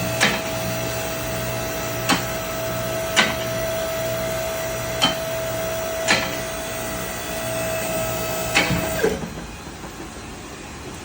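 Vehicle lift's hydraulic pump motor running steadily as the car is raised, with the lift's safety locks clicking every second or two; the motor cuts off about nine seconds in.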